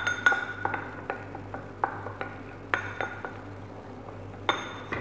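Metal spoon stirring dry flour in a glass bowl, scraping and clinking against the glass at irregular moments, with a sharp ringing clink near the end.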